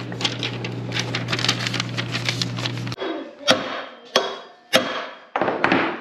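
Small parts and hardware clicking as they are handled over a steady low hum, then several sharp hammer blows, about half a second apart, in the second half.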